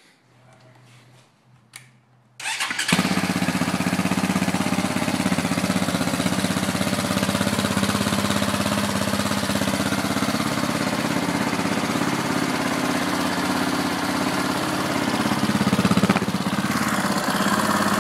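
KTM 525 XC quad's single-cylinder four-stroke engine being started: a faint whirr of cranking, then the engine catches about two and a half seconds in and settles into a steady idle. The engine picks up slightly near the end.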